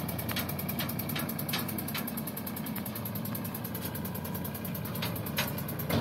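Sonalika DI 745 tractor's diesel engine running steadily while pulling a trailer over a rough dirt track. Sharp knocks come several times in the first two seconds and twice more about five seconds in.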